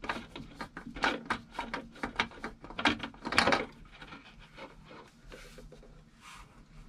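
Oil filter being spun off by hand from the engine of a Yamaha VX1100 WaveRunner: a quick run of scrapes and clicks as the canister turns on its thread and the hand brushes the surrounding hoses and hull. It goes quieter about halfway through as the filter comes free.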